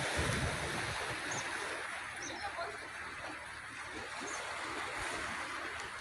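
Steady rushing of sea surf and wind, with wind buffeting the microphone at the start and a few faint high chirps.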